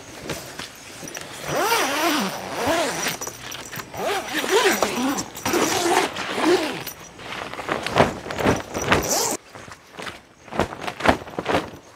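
Tent zipper being pulled along the door in several strokes, each with a rising-and-falling rasp, then a run of short clicks and scrapes in the second half.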